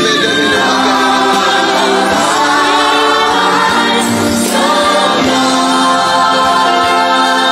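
Gospel worship music with voices singing long, held notes.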